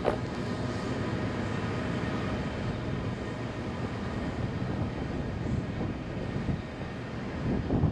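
Wind buffeting the camera's microphone while walking: a steady, gusting low rumble, with a brief knock right at the start.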